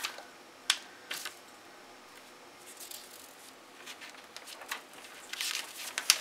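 Hands handling a bag of makeup brushes and its packaging: a sharp click under a second in, a few faint rustles, then a longer stretch of rustling near the end that finishes in a sharp click.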